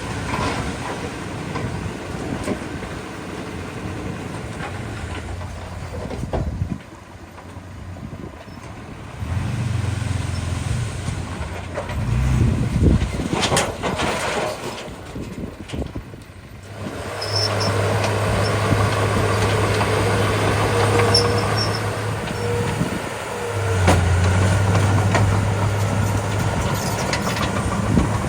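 Diesel engine of a small crawler bulldozer running as it works, its note rising and falling with the load, with the sound briefly dropping away a couple of times.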